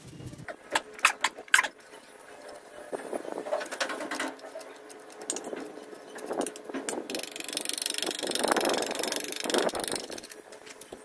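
Small metal trowel working wet cement onto a cement column: a few sharp taps of the blade about a second in, then repeated scraping and smearing strokes, with a longer, louder rasping scrape near the end.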